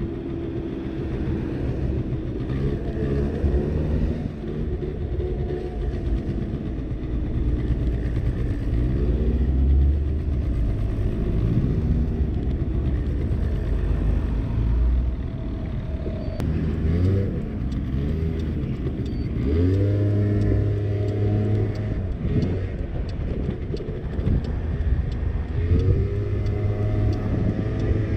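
50cc scooter engine under way, its pitch rising several times as it accelerates, mostly in the second half, and dropping back in between.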